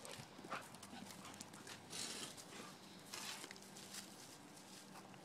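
Dogs' paws on dry leaves and wood chips: faint, scattered crunching and rustling steps as the dogs move about and nose the ground.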